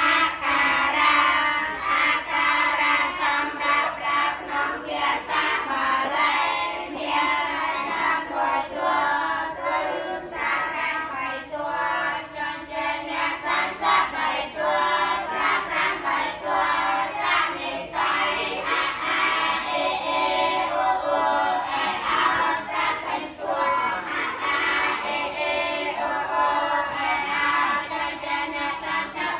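Young Buddhist novice monks chanting Pali together in unison, many boys' voices in a sung rhythm.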